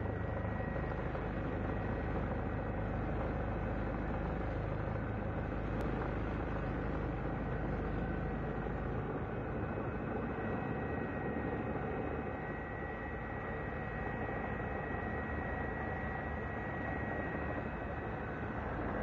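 Steady engine noise heard from on board an aircraft filming from the air: a deep, even rumble with a thin high whine held over it.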